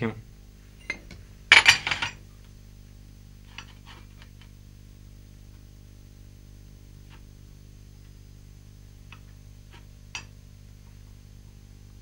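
Porcelain paint dishes clinking together as they are moved, a cluster of sharp clinks about a second and a half in. Then come faint occasional taps and scrapes of a brush mixing indigo into white pigment in a small dish, over a steady low hum.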